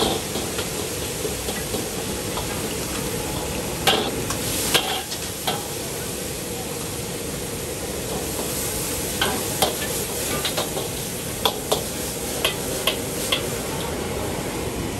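Noodles frying in bubbling hot oil in a wok, a steady sizzling hiss. A metal ladle knocks and scrapes against the wok a few times about four seconds in, then in a quick run of knocks in the second half.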